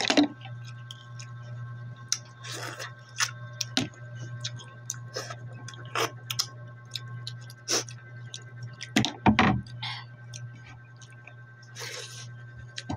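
Close-up chewing and mouth sounds of someone eating green mussels with rice, with sucking sounds as the meat is drawn from the shells and many sharp clicks of the shells being handled; a loud cluster of clicks comes about nine seconds in. A steady low hum runs underneath.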